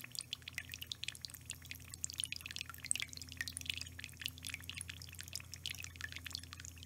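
A thin stream of water trickling into a ceramic bowl of water from a quarter-inch supply line, a fast, continuous patter of small splashes, with a low steady hum underneath. The automatic refiller's valve is still open and the bowl is filling up toward its level sensor.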